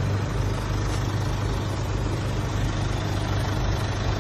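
A monster truck's engine idling steadily, its sound strongest in the low range and even throughout.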